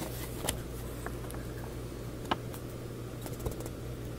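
Paper instruction booklet being handled and its pages shifted: a few sparse, short crinkles and taps, the sharpest near the middle, over a steady low hum.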